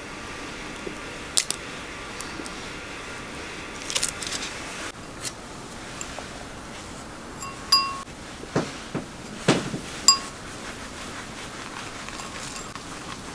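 Small glass prep bowls being handled and set down: a few light knocks and clinks, two of them ringing briefly like struck glass, over a faint steady room hiss.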